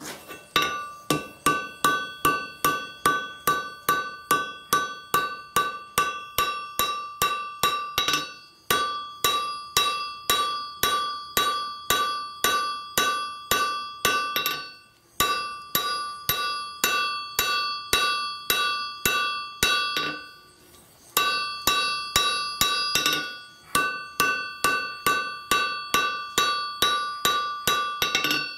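Hand hammer forging a red-hot piece of file steel on an anvil, in a steady run of about three blows a second, each leaving a clear metallic ring from the anvil. The hammering stops briefly a few times.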